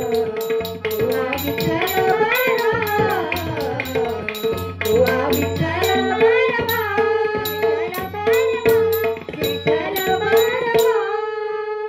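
Marathi devotional abhang (bhajan) sung by a young female voice with tabla accompaniment keeping a steady rhythm, over a held drone tone. About eleven seconds in the drumming stops and the final notes ring on.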